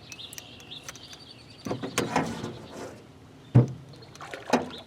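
Water splashing and knocks against a small boat's hull as a hooked smallmouth bass is brought in alongside, with a heavier thump about three and a half seconds in.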